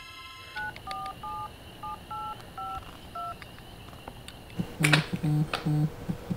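Touch-tone keypad beeps as a number is dialed on a mobile phone, about seven quick tones. Then a phone on a soft rug buzzes in short repeated vibration pulses, louder than the dialing: an incoming call.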